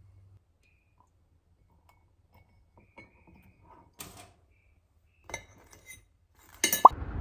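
Light, scattered clinks and knocks of glassware and tableware, ending in a louder clatter with a short squeak near the end.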